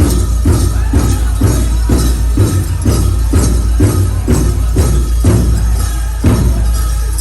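Powwow drum music: a drum struck in a steady beat about twice a second, with a bright jingling over it.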